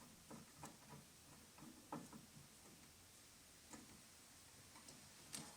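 Near silence with faint, irregular small clicks of a screwdriver and metal track parts being handled as the master carrier screw is tightened, and a louder click near the end.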